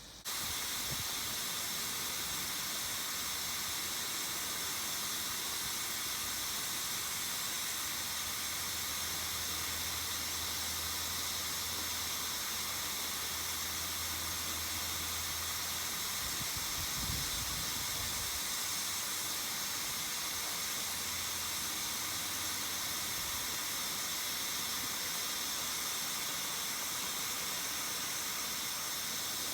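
Steady hiss of spraying water, starting abruptly just after the start and holding at an even level, with a brief low rumble a little past the middle.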